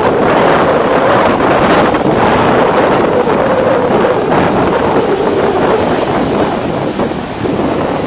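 Wind blowing across the microphone: a loud, steady rush that eases slightly near the end.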